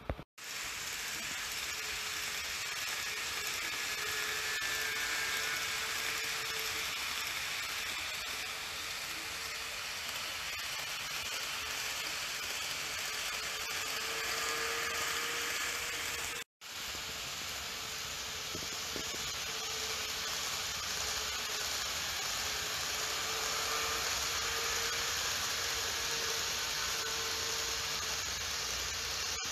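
N-gauge model electric trains running on track: a steady hiss of motor and wheel noise, with a faint motor hum that swells and fades as the trains pass. The sound cuts out for a moment near the start and again about halfway through.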